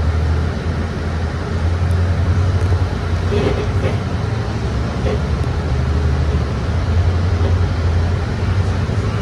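Bus heard from inside the cabin while moving: a steady low engine drone, with a few short creaks from the bodywork about three to five seconds in.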